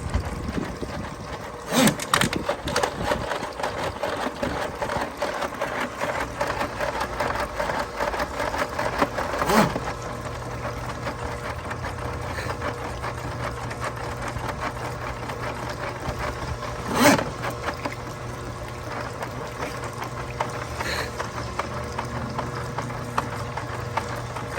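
Motorised drain-cleaning machine (sewer snake) running, a steady mechanical hum with the cable rattling. A lower hum sets in about nine and a half seconds in, and sharp knocks sound about two, nine and a half and seventeen seconds in.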